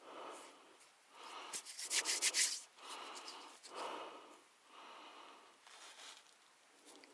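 Thumbs rubbing and scraping dirt off the face of a freshly dug coin, in a run of scratchy rubbing strokes about a second apart. The loudest scraping comes about two seconds in.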